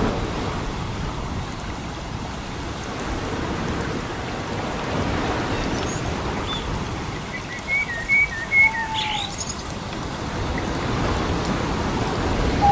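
Small birds chirping a few times, with a short burst of calls in the middle and another call near the end, over a steady rushing noise.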